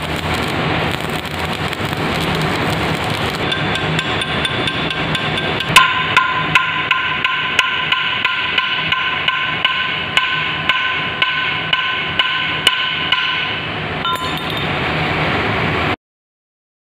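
Arc welding crackling on a steel CTC tea roller for the first few seconds, then a hammer striking the welded roller repeatedly, about two blows a second, the steel roller ringing under each blow. The sound cuts off abruptly near the end.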